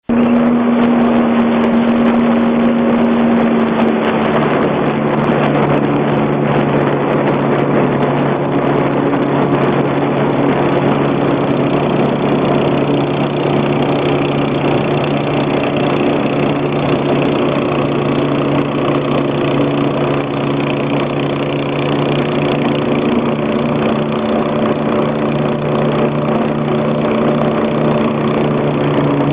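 A speedboat's 13 hp inboard engine running steadily. Its pitch drops a little about four seconds in, then holds even.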